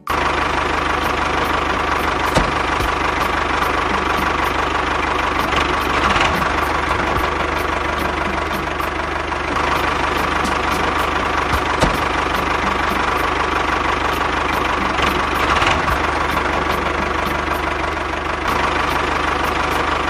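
Tractor engine running steadily with a knocking chug. It starts suddenly and cuts off suddenly.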